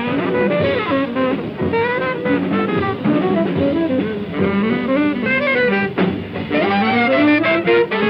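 Bebop jazz combo playing a fast jam: a horn soloing in quick runs over piano, bass and drums. The recording is an old, narrow-sounding radio broadcast.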